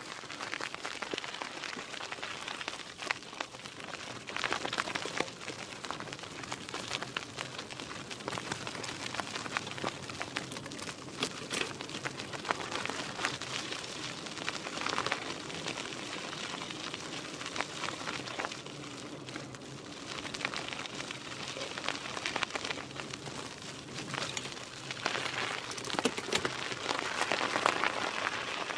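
Mountain bike tyres rolling over gravel: a continuous dense crackle of stones under the wheels, swelling in stretches and loudest near the end.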